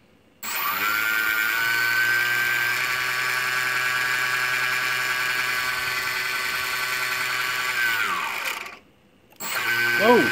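Small brushless outrunner motor, driven by an ESC from a 2S LiPo, running on a bench test: it starts abruptly to a steady high-pitched whine, winds down with falling pitch about eight seconds in, then starts again about half a second later and runs steadily.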